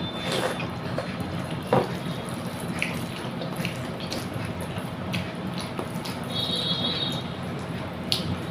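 Wet, squelching eating sounds of rice being mixed with katla fish curry by hand and eaten, with scattered small clicks over a steady background hiss.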